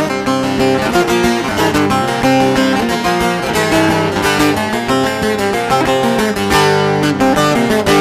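Bağlama (long-necked Turkish saz) played with a plectrum: an instrumental passage of quick plucked notes from a Turkish folk tune.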